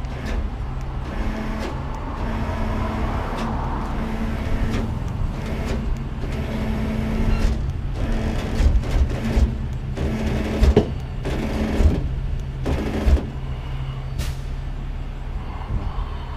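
Heavy rotator wrecker (Kenworth V100) running steadily, a low engine rumble with a steady hum over it, while the hook and rigging are worked. Several heavy knocks come in the middle, and there is a short hiss near the end.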